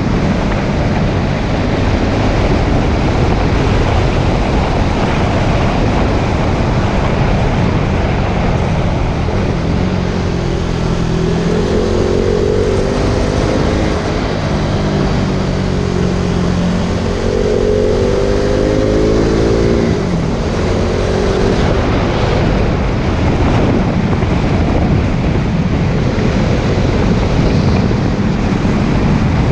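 KTM Duke 390's single-cylinder engine running through its stock exhaust on the move, under a heavy rush of wind on the microphone. Between about ten and twenty seconds in, the engine note rises and falls twice with the throttle.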